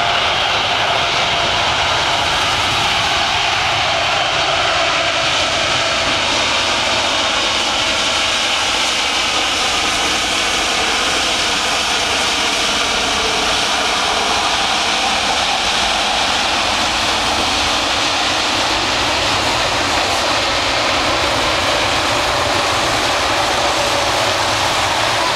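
Jet engines of a Boeing 777-200ER running as the airliner rolls out on a wet runway after touchdown: a steady, loud rush of engine noise, the faint whine dipping slightly in pitch as it passes close about halfway through.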